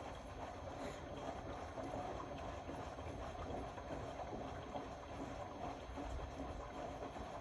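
Indesit Innex BWE 91496X front-loading washing machine mid-wash: the drum turning and tumbling the laundry, with water sloshing, a steady run without breaks.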